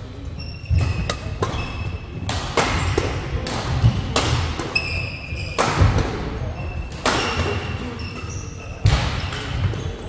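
Badminton doubles rally: rackets striking the shuttlecock in quick exchanges, with short shoe squeaks and feet thudding on the court floor between the hits.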